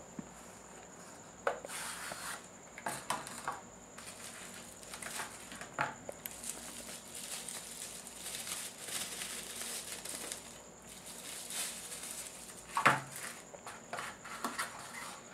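Cardboard knife box being handled and opened, the tray slid out of its sleeve with scattered taps and scrapes. Plastic bubble wrap rustles and crinkles as a small folding knife is unwrapped, with one sharper knock near the end.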